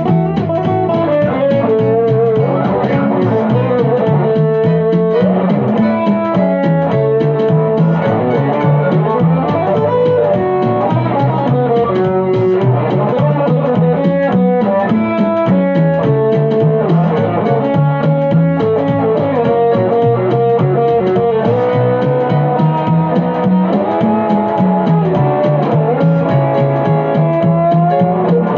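Instrumental passage of a song: acoustic-electric guitar played together with an electronic keyboard, with a moving bass line under a steady beat.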